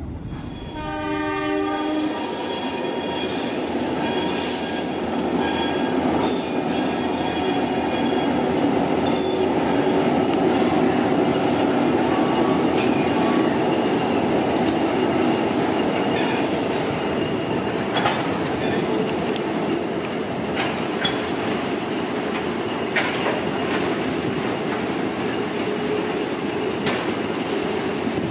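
Freight train hauled by diesel locomotives rolling past. A horn sounds briefly about a second in, then there is the steady rumble of the engines and wagons on the rails, with occasional clicks of wheels over rail joints and a few short wheel squeals.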